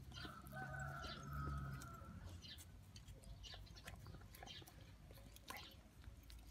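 Thai Ridgeback dogs licking and nibbling a banana from a hand: faint wet clicks and smacks of their mouths. A faint distant call is held for over a second near the start.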